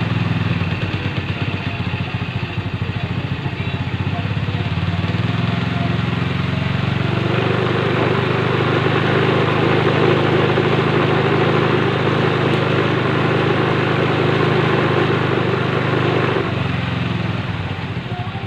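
Rusi 110 motorcycle's small single-cylinder four-stroke engine running steadily. It gets louder and harsher from about seven seconds in and settles back near the end.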